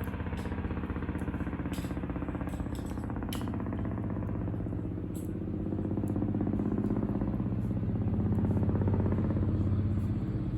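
An engine running steadily, getting louder from about six seconds in, with a few faint sharp clicks over it.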